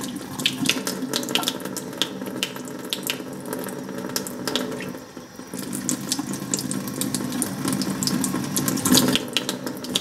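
Thin stream of water from a kitchen faucet running into the top of a clogged stainless mesh fuel filter and trickling out its bottom into a stainless steel sink, a steady splashing with many small drip-like ticks. Near the end the stream falls straight into the sink.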